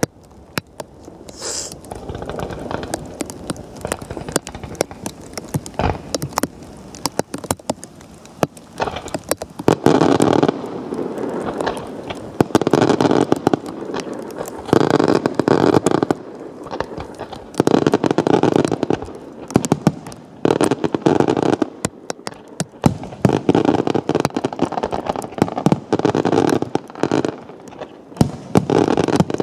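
Electronically fired fireworks going off in rapid, dense volleys of pops and crackling. From about ten seconds in, loud surges of crackle about a second long come every two seconds or so.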